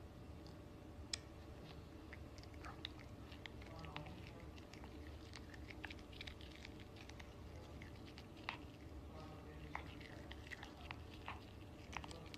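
Yorkshire terrier biting and chewing on a toothbrush as its teeth are brushed: faint, irregular small clicks and scrapes of teeth and bristles.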